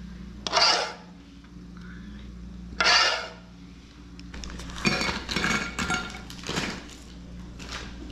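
A spoon scraping chocolate ganache out of a saucepan twice, then a busy run of clicks and scrapes as the ganache is spread over the dessert in plastic pots.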